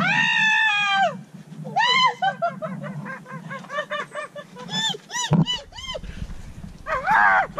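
High-pitched monkey-like hooting calls, most likely a person imitating a monkey: one long call, then a quickening run of short hoots and louder calls near the end. A low bump about five seconds in.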